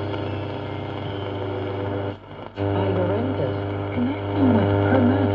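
Loudspeaker output of a 1939 Mende Super MS216-W valve radio during tuning: a steady deep mains hum with a faint, distorted broadcast voice wavering through it. The sound cuts out for a moment a little over two seconds in.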